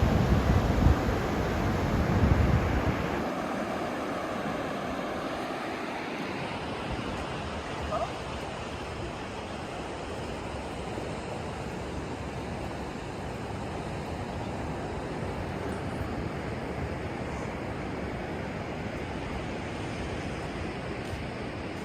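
Pacific Ocean surf washing steadily, with wind buffeting the microphone for the first three seconds or so.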